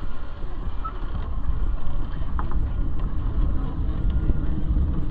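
Streetcar running along its tracks, heard from inside the car: a steady low rumble with a few light clicks.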